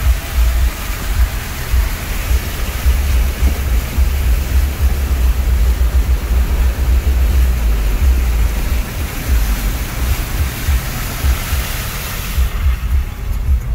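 Cabin noise of a Jeep Wrangler driving slowly along a flooded dirt track: a heavy, uneven low rumble from the vehicle and rough ground, with a steady hiss over it. The hiss drops away near the end.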